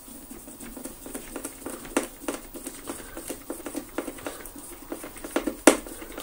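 Hand screwdriver driving a screw into the plastic ball housing of a Dyson DC24 vacuum cleaner: a run of small irregular clicks and scrapes, with a sharper click about two seconds in and the loudest one near the end.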